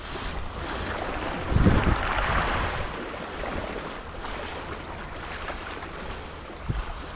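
Wind buffeting the microphone over sea water lapping on shore rocks, with a stronger gust about one and a half seconds in.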